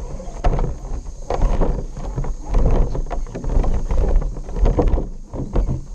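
An RC rock crawler's tyres and chassis knocking and scraping over rocks and dry leaves, an irregular clatter of small bumps over a low rumble, heard from a camera mounted on the truck itself.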